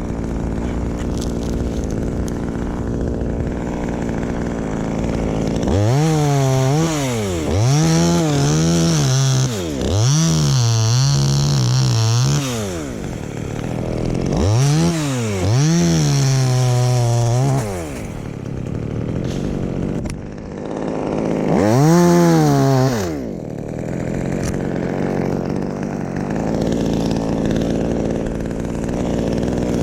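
Chainsaw idling, revved up about six times in bursts of one to three seconds and dropping back to idle in between, as when cutting through branches of a tamarind tree.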